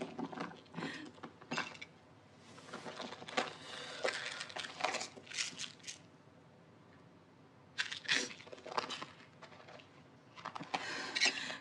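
Medicine boxes and small pill containers being rummaged through in a plastic storage box: packaging rustling and crinkling with small clicks and knocks, on and off, with a quiet pause a little past the middle.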